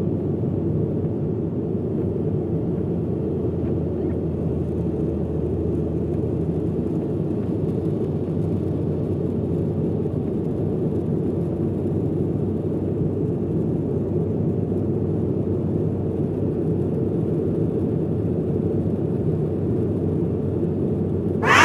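Steady jet airliner cabin noise, the engines and rushing airflow heard from a window seat during the climb, an even low rumble. Right at the end a short, louder burst of hiss cuts in.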